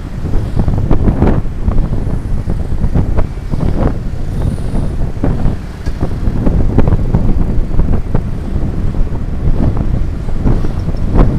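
Heavy wind buffeting on the microphone over the engine and road noise of a motorcycle on the move, surging in irregular gusts.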